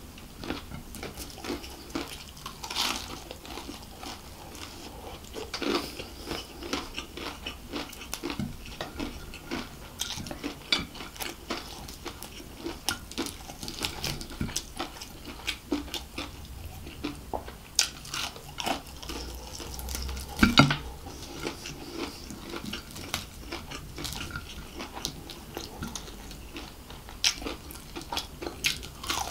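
Close-miked eating of chicken biryani by hand: fingers working rice and crispy fried chicken against a ceramic plate, mixed with chewing and crunching. Many short clicks and crackles, with one louder knock about twenty seconds in.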